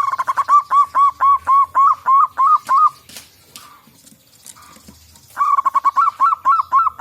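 Zebra doves (local perkutut) singing: a run of quick, evenly spaced cooing notes for about three seconds, then after a short pause another run starts a little after five seconds.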